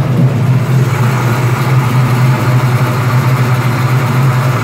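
1967 Camaro's stroker V8 with an aftermarket fuel injection system idling steadily after a first-key start. The idle is smooth and even.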